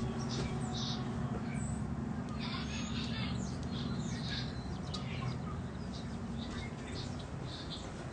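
Birds chirping in short, scattered high calls over a steady low hum.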